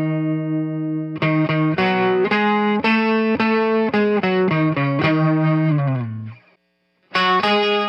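Electric 12-string guitar with a chiming jangle: a held chord rings out, then single picked notes and chords follow, and the last notes slide down in pitch just before a brief stop. Playing starts again about a second later.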